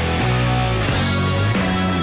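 Rock music with electric guitar chords.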